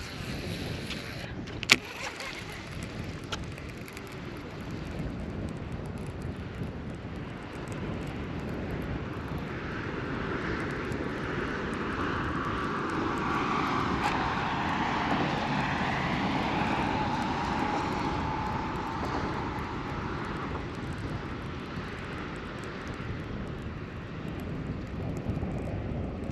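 A distant engine passing by, swelling over several seconds to its loudest about halfway through, then fading. A single sharp click comes about two seconds in.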